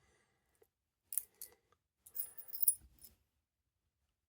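Small metal padlock and its keys being handled: a couple of sharp clicks, then a short cluster of metallic clinks with a bright ring.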